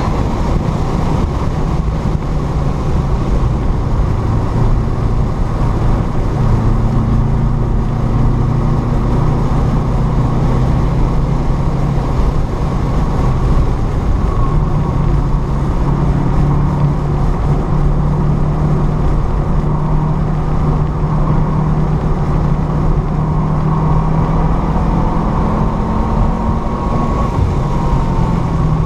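A car's engine, with tyre and wind noise, heard from inside the cabin while it is driven hard on a race track. The engine is pulling at around 5,000 rpm and then runs on part throttle through corners, its pitch dropping and rising as the revs change.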